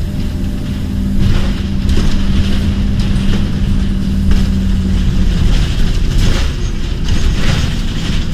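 Scania OmniCity double-decker bus's five-cylinder diesel engine and drivetrain running as the bus drives along, heard from inside the passenger saloon. A steady low hum runs under the rumble and drops away about five seconds in, with a few short rattles from the body.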